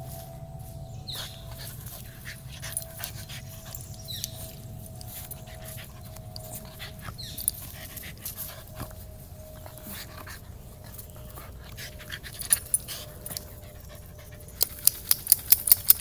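Shiba Inu rolling and rubbing on its back on a dirt trail: scuffing and rustling of fur against soil and dry leaves. Near the end the dog shakes itself off, a quick run of flapping slaps with a bright metallic jingle from its harness.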